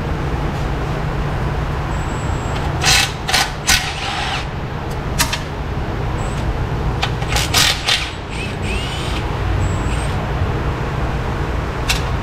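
Cordless ratchet spinning out the dipstick tube bolts on a Hummer H2's 6.2 L V8 in short bursts, several quick runs about three seconds in and again around seven to eight seconds in, over a steady low hum.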